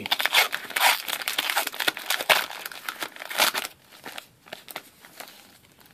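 Foil wrapper of a trading-card pack being torn open and pulled apart, crinkling densely for the first three and a half seconds or so, then only a few faint rustles.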